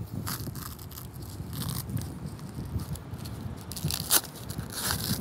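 Nylon hook-and-loop strap of a combat application tourniquet (CAT) being threaded through its friction buckle and pulled, a continuous run of scratchy crackles with a few sharper clicks near the end.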